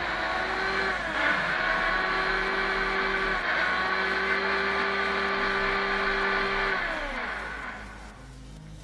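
Electric hand planer's motor running at full speed with a steady high whine, then winding down with a falling pitch about seven seconds in.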